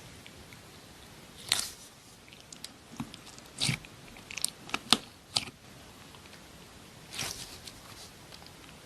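Slime being squeezed and pressed, giving short sharp clicks in a few clusters, the loudest about five seconds in.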